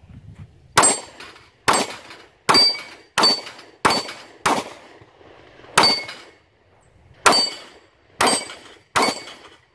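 A string of ten gunshots from a firearm fired at a range, about one every 0.7 s at first with a few longer pauses later. Each shot leaves a short ringing tail.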